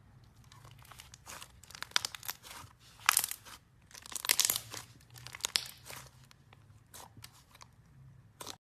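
Crunchy slime being pressed and pulled by hand, giving clusters of crackles and crunches, loudest about two, three and four and a half seconds in. Near the end it thins to a few scattered clicks.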